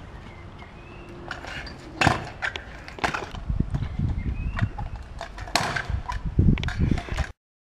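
Freestyle kick scooter on concrete paving: wheels rolling with a rumble and clatter, and several sharp clacks as the deck and wheels hit the ground on tricks and landings. The sound cuts off suddenly near the end.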